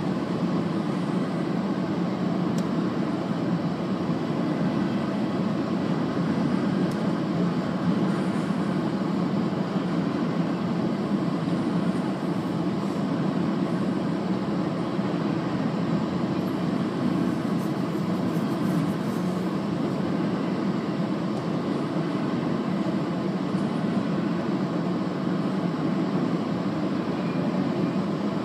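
Double-stack intermodal well cars of a freight train rolling past a grade crossing: a steady rumble of steel wheels on the rails.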